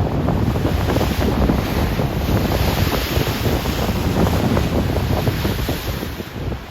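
Rough Atlantic Ocean waves churning and crossing each other in a continuous rush, with a wave surging brighter about halfway through. Wind buffets the microphone, adding a low rumble.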